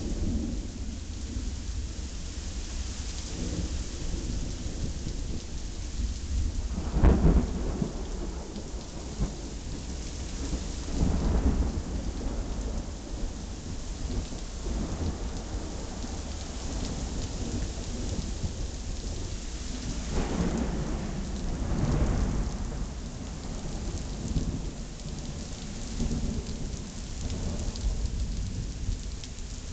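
Thunderstorm: steady rain falling throughout, with several rolls of thunder rumbling over it. The loudest peal comes about a quarter of the way in, and more rumbles follow later.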